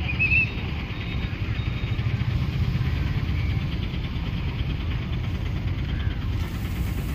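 Steady low rumble of outdoor street ambience, with a brief high chirp just after the start.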